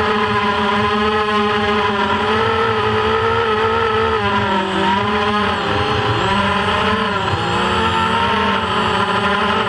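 FPV quadcopter's brushless motors and propellers heard on board, a steady loud whine whose pitch rises and falls with the throttle, dipping and climbing again about halfway through.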